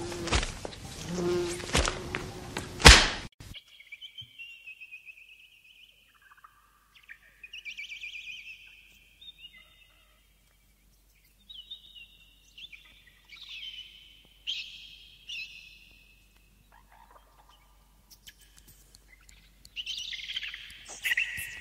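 A fly buzzing close by, cut off about three seconds in by a sudden loud swat. High chirping bird calls follow, then a burst of rapid clicking and chirps near the end.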